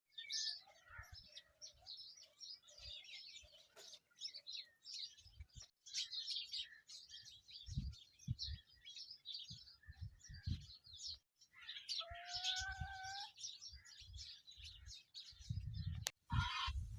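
Pet Alexandrine parrot chirping and chattering in quick, high calls, with one longer drawn-out call about twelve seconds in. Soft low thuds come and go underneath, and a sharp click sounds near the end.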